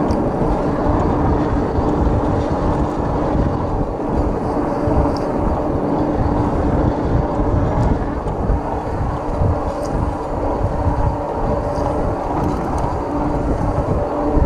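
Wind and road noise from an electric bike ridden at about 14 mph on a bridge deck, with a steady hum underneath.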